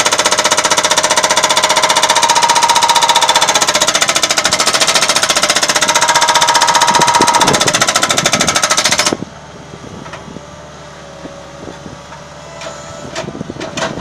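Hydraulic breaker on a skid steer loader hammering a reinforced concrete pile with loud, rapid blows, which stop abruptly about nine seconds in. After that the loader's engine runs on much more quietly, with a few faint knocks.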